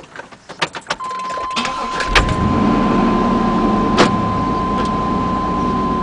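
Clicks from the ignition, then a steady high electronic warning tone as the truck's key is turned. About two seconds in, the engine cranks and starts and settles into a steady run.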